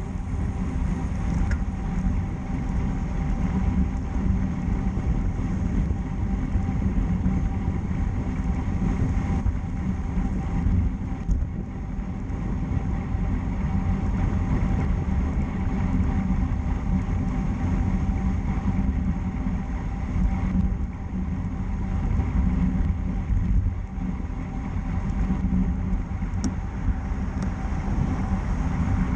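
Steady wind rush over the microphone with tyre and road noise from a road bicycle riding at speed.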